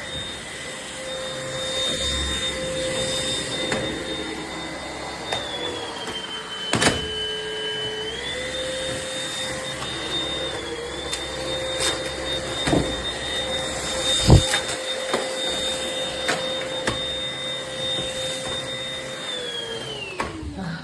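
Rowenta XPert 6.60 cordless stick vacuum running with a steady whine. Its pitch dips briefly twice, and a few knocks sound along the way. Near the end the motor winds down as it is switched off.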